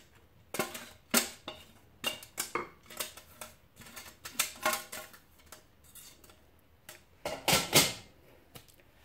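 Irregular knocks and scrapes of a steel couscoussier steamer basket and a wooden spoon against a glazed clay bowl as steamed fine vermicelli is emptied out and spread, the seffa finished after its fourth steaming. The loudest clatter comes about three-quarters of the way through.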